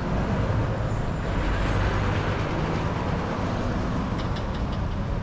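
Steady rush of wind and road noise on the microphone of a camera riding along on a moving bicycle, with a few faint clicks about four seconds in.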